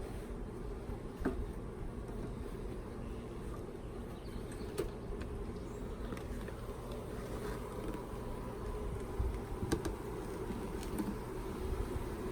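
Honeybees buzzing steadily around an open hive, with a few faint clicks.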